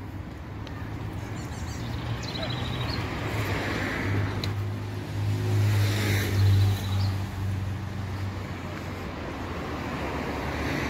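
Street traffic: a motor vehicle's engine hum swells as it passes, loudest about six seconds in, over the steady background noise of the road. Short high chirps come twice, near two seconds and near six seconds.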